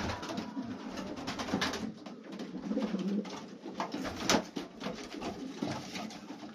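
Old Polish pigeons cooing repeatedly in a low, pulsing coo inside a small loft, with scattered sharp clicks and taps; the loudest click comes about four seconds in.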